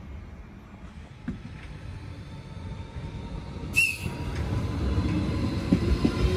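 Renfe Civia series 463 electric commuter train moving along the platform at low speed, its rail rumble growing louder with a rising whine. A sharp click comes about four seconds in.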